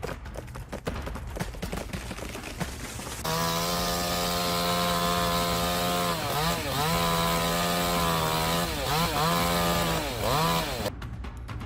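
Two-stroke chainsaw run at full throttle with a steady high-pitched whine. Its pitch dips and recovers several times in the second half as the saw is loaded and eased off. The first few seconds hold quieter, irregular crackling and knocking before the saw comes back up to speed.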